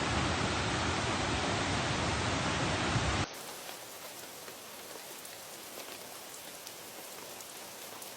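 Steady hiss of water, like rain falling. About three seconds in it cuts off abruptly to a much quieter hiss with faint scattered ticks.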